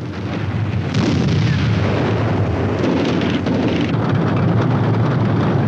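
Battle noise laid over archival war film: a heavy, continuous rumble that swells about a second in and then holds steady.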